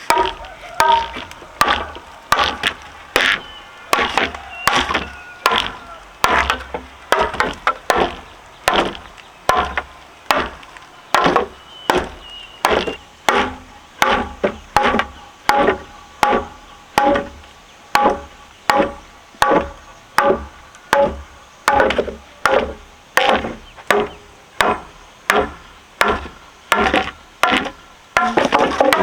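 Steady, rhythmic chopping with a blade striking wood, about one and a half strokes a second, each stroke with a short ringing tail.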